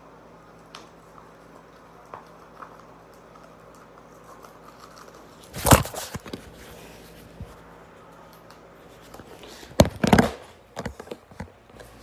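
Handling noise: a few faint plastic clicks while a zip tie is worked around a bike handlebar, then two loud rustling, rubbing bursts, one about halfway and one near the end, as a hand brushes across the phone's microphone, followed by a few scattered clicks.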